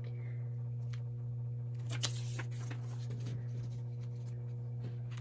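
Light rustling and soft taps of paper bookmarks being slid into place on a plastic laminating pouch, with a sharper click about two seconds in. A steady low hum runs underneath.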